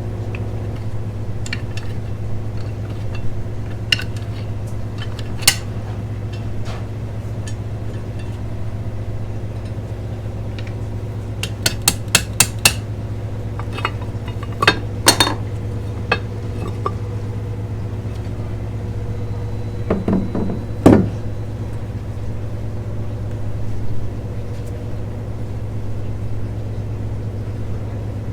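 Scattered metal clinks and taps of hand tools and loose bolts on metal fittings, with a quick run of about five clinks around twelve seconds in and a heavier knock around twenty-one seconds, over a steady low hum.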